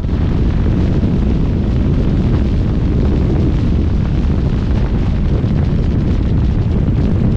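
Wind buffeting the microphone: a loud, steady low rumble with no distinct engine note.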